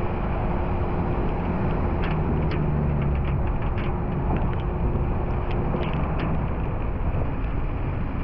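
Car driving on a wet road in the rain, heard from a camera mounted on its bonnet: steady engine and tyre rumble, with scattered sharp ticks and a steady hum that stops about six seconds in.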